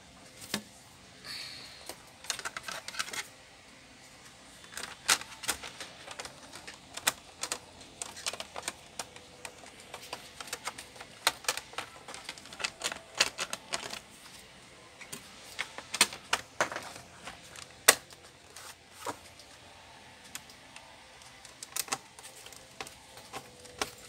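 Irregular clicks and taps of hard plastic as the bottom service cover of an HP G6 laptop is fitted and pressed into place on the base. Near the end a small screwdriver turns screws into the base.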